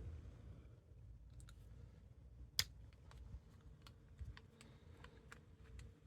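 Faint, scattered small clicks and taps of tiny chainsaw carburetor parts and screws being handled and fitted, with one sharper click about two and a half seconds in.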